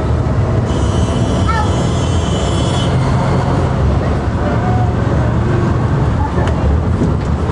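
Inside a moving city bus: steady low engine and road rumble, with a high squeal lasting about two seconds near the start and faint voices of passengers.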